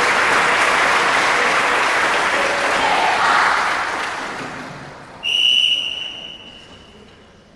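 Audience applause that fades out over the first five seconds. About five seconds in, a single sharp high-pitched tone sounds suddenly and dies away over a second or so.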